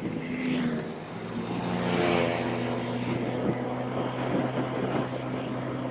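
Motorbike engine running steadily at cruising speed, a constant hum with rushing air noise that swells and fades. About two seconds in, a higher engine tone slides down in pitch.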